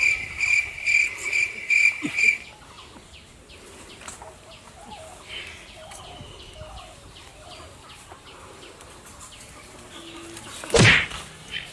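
A loud, high, steady-pitched tone pulsing about three times a second for the first two seconds. Then quieter outdoor background with birds chirping and hens clucking, and a loud short swish near the end.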